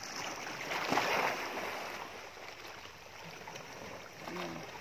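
Water lapping and sloshing against the hull of a small outrigger boat, with a louder surge of water about a second in.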